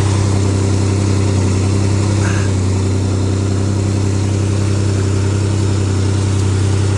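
Pontiac donor engine idling steadily on its first start after repairs, running through a pinched exhaust.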